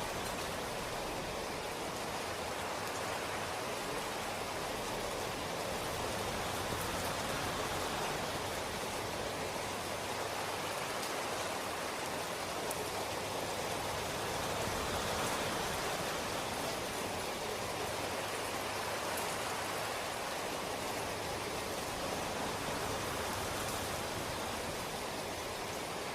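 Steady rain falling: an even, continuous hiss with faint ticks of individual drops.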